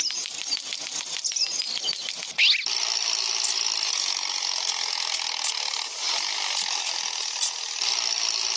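Toy tractor's small electric motor and plastic gears running as it drives, first as rapid clicking for about two and a half seconds, then as a steady whir.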